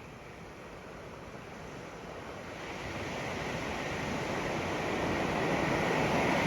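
Ocean surf washing onto a sandy beach, a wave building steadily louder through the second half.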